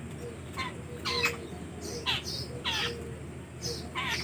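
Birds calling: several short, harsh calls that drop in pitch, and a high chirp repeated about twice a second.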